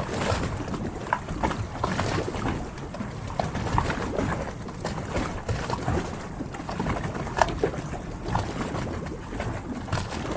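Harbour water lapping and splashing against the hulls of moored yachts, with scattered short knocks and creaks throughout.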